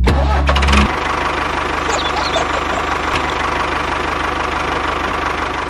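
Tractor engine running steadily with an even knocking beat. It is louder and deeper for the first second, then settles into a constant run.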